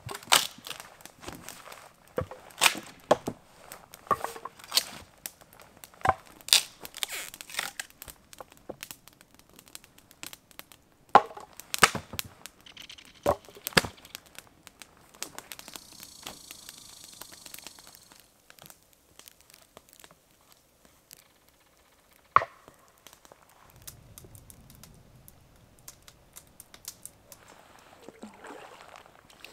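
Dry firewood being chopped and snapped with a hatchet: a run of sharp, irregular cracks and knocks, which thin out and stop about halfway through.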